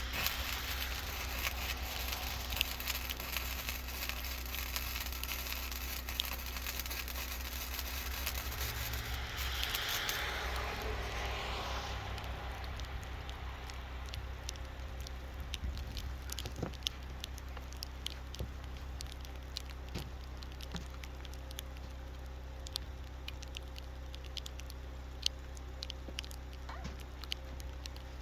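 Wire-feed welding arc crackling for about the first twelve seconds, then stopping, over the steady low hum of a generator. After the arc stops, only scattered light ticks remain over the hum.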